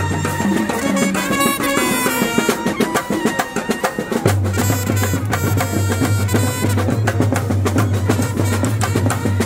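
Festival procession music: fast, dense drumming with wind instruments playing a melody over it. A low steady drone joins about four seconds in.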